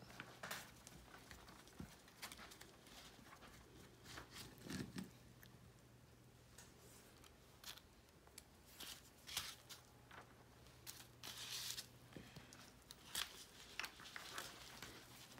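Faint, scattered clicks and scrapes of a small screwdriver backing screws out of an ATV tank lever shifter housing, with the parts being handled, over a faint steady hum.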